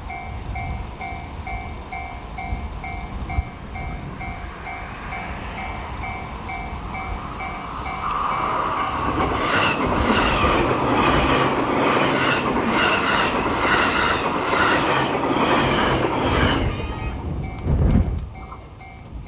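Level-crossing alarm bell ringing at about two strokes a second. From about eight seconds in, an electric train passes close by for some eight seconds, its wheels clattering rhythmically over the rail joints, and then the alarm is heard alone again. There is a low thud near the end.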